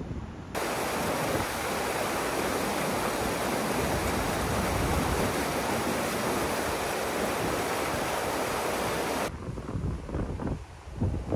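Mountain river rushing through rapids over bedrock, a steady loud rush that starts about half a second in and cuts off suddenly near the end. Before and after it, wind buffets the microphone in gusts.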